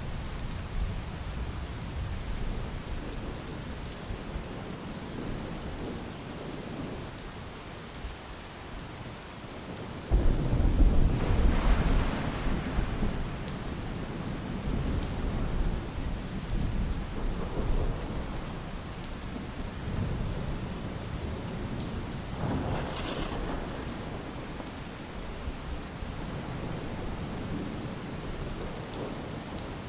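Steady rain falling, with thunder: a sudden loud rumble of thunder about a third of the way through, and a second, softer rolling rumble about two thirds of the way through.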